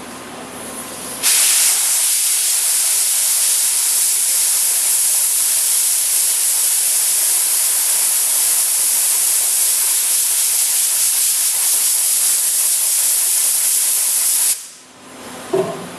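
Compressed-air blow gun blasting a steady hiss onto freshly welded sheet metal to cool it. The hiss starts suddenly about a second in and cuts off sharply near the end.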